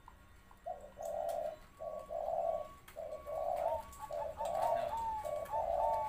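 Spotted dove cooing: a run of about six coo notes, each around half a second long, the later ones ending in short rising upturns.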